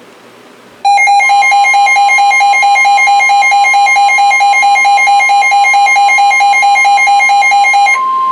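A weather radio's rapidly pulsing alert beep sounds over the steady NOAA Weather Radio warning alarm tone, which precedes a flash flood warning broadcast. The pulsing cuts off near the end, leaving the steady single tone.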